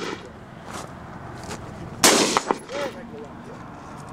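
A single loud rifle shot from a prone shooter about halfway through, with a short echo, part of a slow string of shots.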